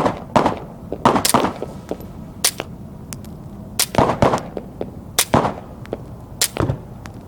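Suppressed Ruger Mark III .22 LR pistol with a SilencerCo Sparrow suppressor and a barrel cut down to about 1.25 inches, firing CCI subsonic rounds: a string of sharp cracks, about one a second, several coming in quick pairs.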